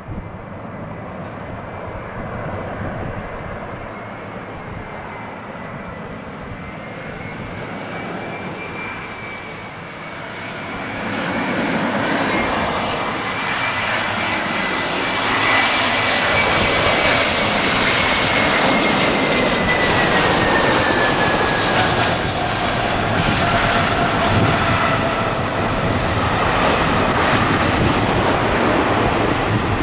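Twin-engine Airbus A321 jet airliner on landing approach. Its engine noise grows much louder from about ten seconds in, and an engine whine falls in pitch as the plane passes by. The noise stays loud as the aircraft rolls down the runway near the end.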